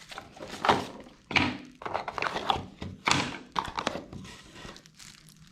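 Product packaging being handled and worked open by hand: a series of irregular knocks, taps and rustles.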